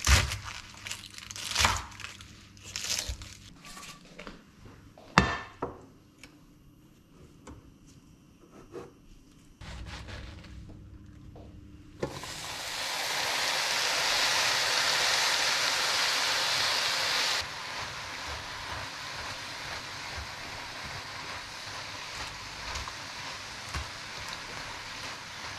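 A knife chopping fresh spinach on a wooden cutting board, a handful of sharp cuts in the first few seconds. About twelve seconds in, the spinach goes into a hot pan and sizzles loudly, dropping suddenly to a quieter steady sizzle about five seconds later while it is stirred.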